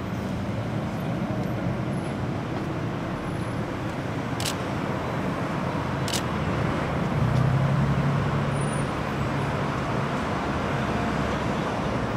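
Steady street traffic noise: passing cars with a low engine hum that grows stronger about halfway through. Two brief clicks sound in the middle.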